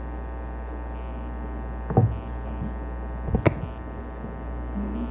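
Steady electrical mains hum from the sound system, broken by two short knocks, about two seconds in and again about a second and a half later.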